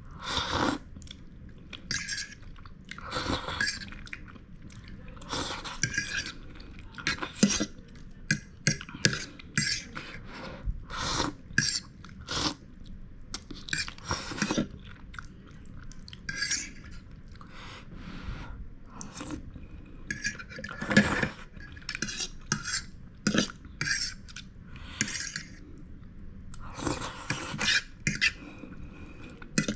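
Cutlery clinking and scraping against a bowl of cooked Wai Wai noodles, with chewing in between, in irregular short knocks.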